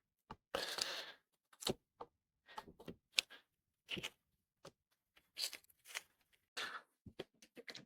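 Small clicks, knocks and scrapes of a Triumph Stag's metal fuel filler cap being worked to see whether it will close, its pivot newly secured with a split pin. A longer scrape comes just under a second in, followed by scattered light clicks.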